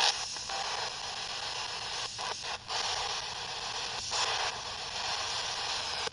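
Spirit box sweeping the FM band: a steady hiss of radio static, cut by several very short dropouts as it jumps from station to station.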